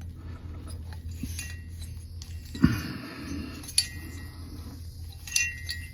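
Metal engine parts clinking and knocking as they are handled: a dull knock about halfway through, then two light clinks that ring briefly, over a steady low hum.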